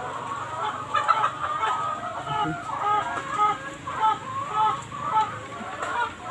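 Domestic chickens clucking, a run of short repeated clucks about two or three a second.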